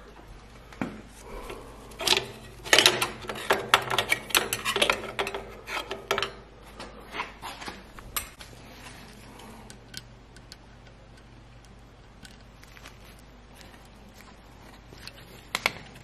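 Metal clicks and clinks of hand tools and burner parts being handled as the nozzle and electrode assembly is taken out of an oil burner: a dense run of clicks about two to six seconds in, then scattered ones, and a last click near the end.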